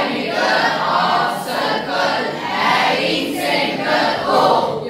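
A class of schoolchildren reading aloud in unison, a loud chorus of many voices that breaks off near the end.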